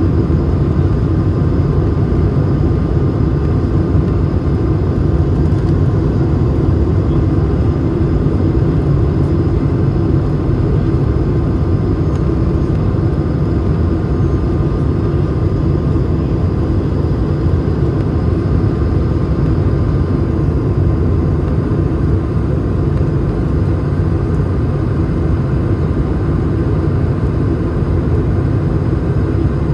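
Steady cabin noise of an Airbus A220 in flight, heard from a window seat inside the cabin: a low rumble of engine and airflow with a faint steady whine above it, unchanging throughout.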